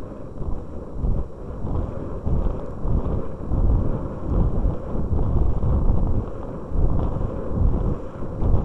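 Wind rushing and buffeting over the microphone of a small camera mounted on a model rocket in flight, a gusty low rumble that swells and fades.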